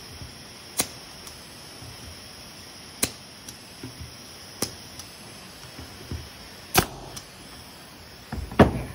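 Pneumatic nail gun firing nails into wood: four sharp shots about two seconds apart, the third fainter, then a louder knock and clatter near the end.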